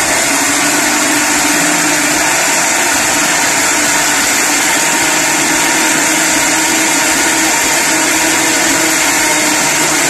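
Countertop blender running at a steady speed, motor and blades churning broccoli florets in milk, oil and sugar into a cake batter.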